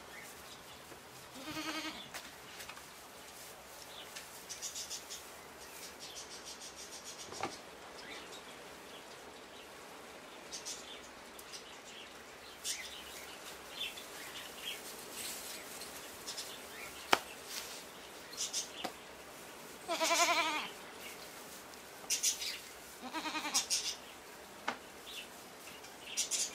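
Goats bleating: a short quavering bleat in the first two seconds, then a longer, louder one about twenty seconds in and another a few seconds later. Between them come small rustles and ticks, and a single sharp click about seventeen seconds in.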